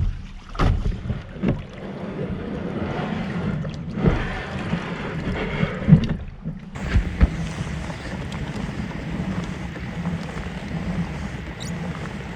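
Kayak on the water with wind on the microphone: a few sharp knocks and thumps in the first seconds, then a steady rush of wind and water that breaks off suddenly a little after halfway and resumes.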